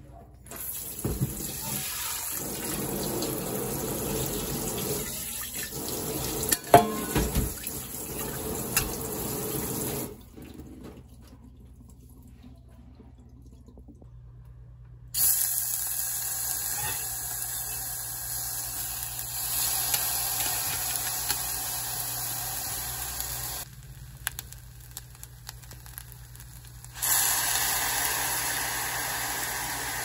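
Water running and splashing in a stainless steel sink as rice is rinsed and drained through a mesh strainer, with a few sharp clinks. The water stops about a third of the way in; later comes a steady hiss.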